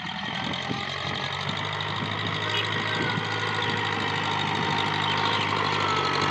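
TAFE 5900 DI tractor's diesel engine running steadily while it pulls a tilling implement through the field. The engine grows gradually louder as it comes closer.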